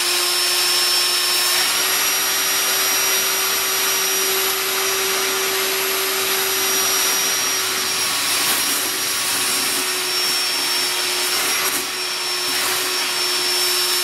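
Ryobi P770 18-volt cordless wet/dry vacuum running steadily with a high whine over rushing air, sucking a gallon of water up out of a bucket through its hose. Its pitch steps up slightly about two seconds in.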